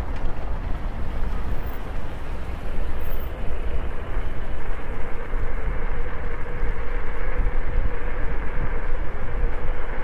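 Steady riding noise from a moving electric scooter: heavy wind rumble on the microphone and wheel rumble over the road surface, with a faint steady tone.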